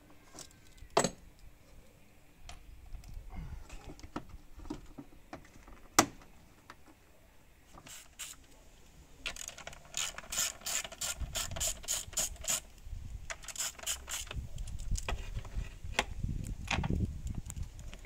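Hand ratchet clicking in quick runs, about four or five clicks a second, as bolts are turned on the plastic engine cover, after a few single sharp knocks of tools. Near the end there is low rumbling handling noise.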